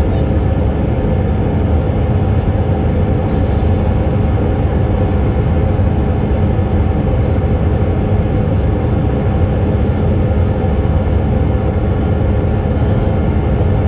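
Jet airliner's engines at climb power just after takeoff, heard from inside the cabin as a steady, loud rumble mixed with airflow noise, with a few steady hums on top.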